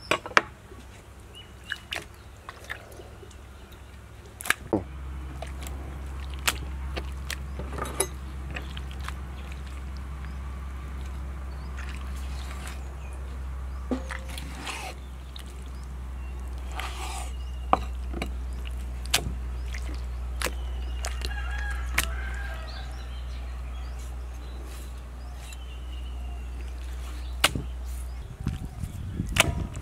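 A knife cutting raw beef tongue on a wet wooden chopping board, with scattered sharp knocks and clicks as the blade meets the board and the meat is handled. A steady low rumble comes in about five seconds in and stops near the end.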